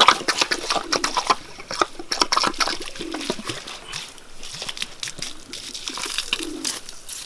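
Water spraying out of the open end of a black plastic hose and spattering onto leaves and soil, heaviest in the first two seconds. A dove coos a couple of times in the background.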